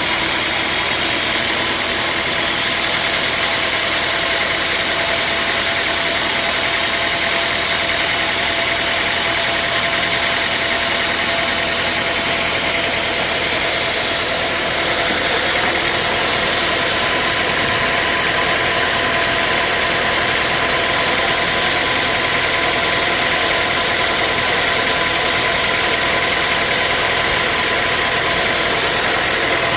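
Sawmill machinery running steadily: a loud, even mechanical noise with a few faint steady tones, with no change in load.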